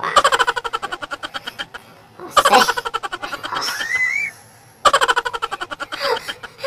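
A man laughing hard in rapid ha-ha-ha bursts. The laughter comes in bouts with short breaks, and there is a rising high squeal in the middle.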